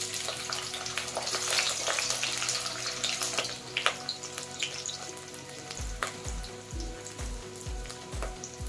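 Chopped onions sizzling in hot oil in a kadai. The sizzle starts abruptly as they go in and settles down over the following seconds.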